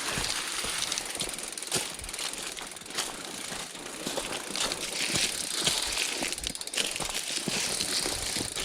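Bicycle being ridden over a rough surface, a continuous irregular rattling and clicking with wind rushing on the microphone.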